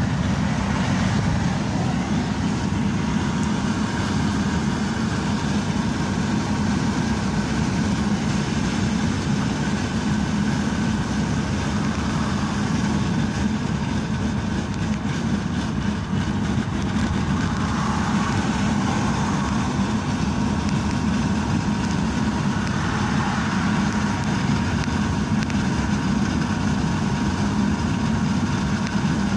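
Steady engine and tyre noise of a car cruising at highway speed, heard from inside the cabin.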